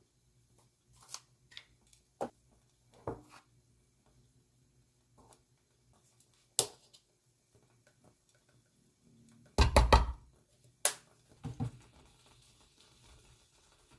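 Kitchen handling sounds: scattered clicks and light knocks of utensils and dishes, with a quick run of louder knocks and clatter about ten seconds in and a few more just after.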